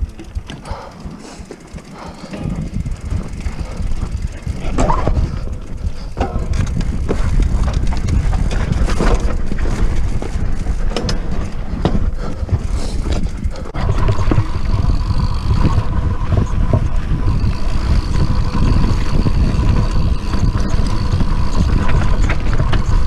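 Mountain bike riding down a rocky dirt singletrack: a steady rush of wind on the microphone, with tyres on dirt and the bike rattling over rocks, starting a couple of seconds in after a quieter pause. About two-thirds of the way through, a steady high buzz comes in.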